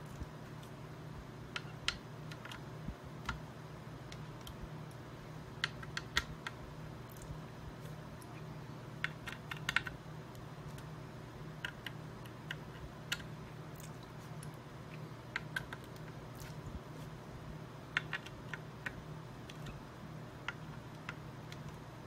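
Scattered light clicks and taps, some in quick little clusters, of hands handling a graphics card and its metal water block, over a steady low hum.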